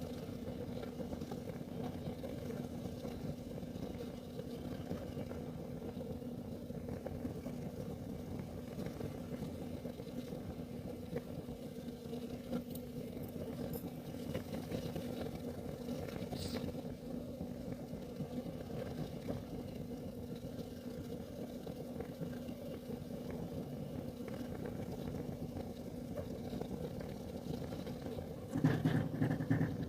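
Kerosene heater burning with a steady low rumble and a constant hum, a few faint ticks now and then. Near the end a louder low sound lasting about a second rises over it.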